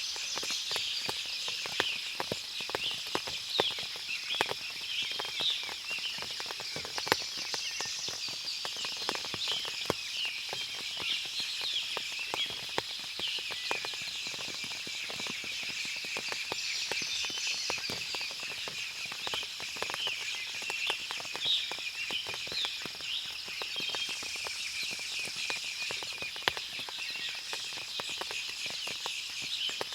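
Forest ambience after rain: many birds chirping and twittering over a steady high insect-like trill, with scattered sharp drips throughout.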